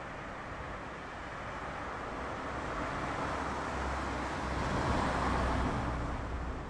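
A car passing on the street: a steady rush of tyre and engine noise with a low rumble that builds to its loudest about five seconds in, then starts to fade.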